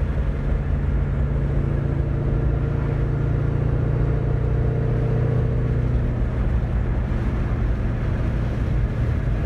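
2001 Ford Mustang with a newly fitted exhaust, engine and exhaust droning steadily and low as the car is driven, heard from inside the cabin with road noise.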